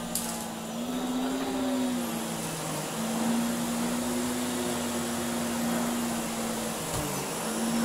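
Miele canister vacuum running with an EB01 electric powerhead, its motor and brush roll giving a steady hum that wavers slightly in pitch as the head is worked over a rug. A brief knock comes about seven seconds in.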